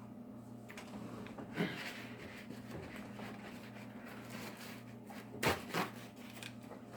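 Kitchen handling noises, rustling with a few sharp knocks, over a steady low hum. The loudest are two knocks in quick succession about five and a half seconds in.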